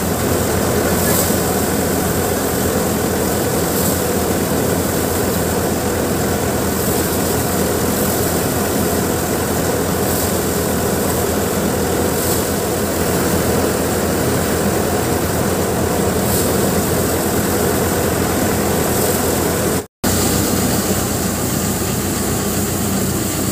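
Mustard thresher machine running steadily while threshing dry mustard plants, a loud continuous engine-and-drum drone. The sound cuts out for an instant near the end, then the same running goes on.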